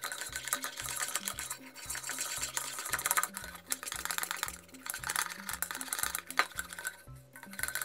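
A wire whisk beats a foamy toothpaste-and-shower-gel slime mixture in a bowl, giving a fast, dense scratchy crackle. Background music with a steady, repeating bass line plays over it.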